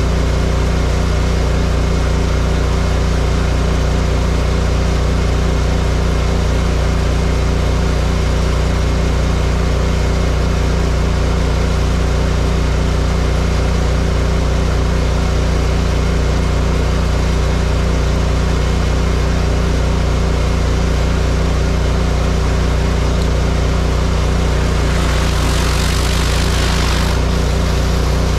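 Pressure washer's engine running steadily under load with an even rhythmic pulse. Near the end a surface cleaner's water hiss swells for about two seconds as it passes close by.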